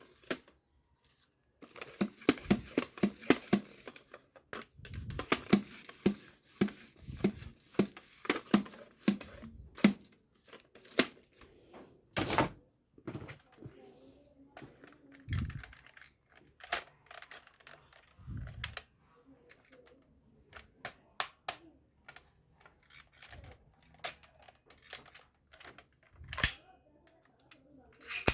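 Plastic toy guns being handled and worked: quick runs of sharp clicks and knocks, several a second, with a few heavier thunks in between.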